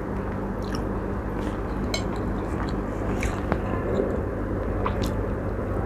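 A person chewing a mouthful of chicken steak, with a few short clicks over a steady low hum.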